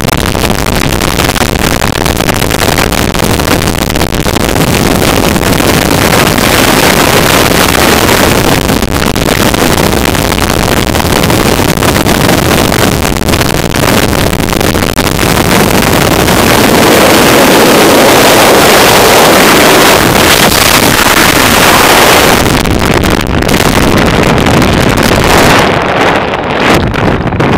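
Skydiving airflow blasting the camera's microphone: a loud, steady rush of wind noise that turns duller near the end.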